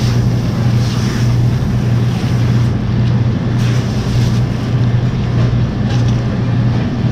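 Steady low hum with a hiss over it, with a few faint rustles of a plastic bag and tongs moving through ice.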